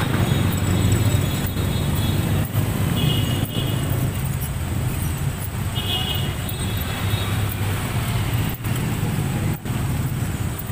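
Street traffic: a steady low rumble of motorcycles and cars running on the road, with two short high-pitched tones about three and six seconds in.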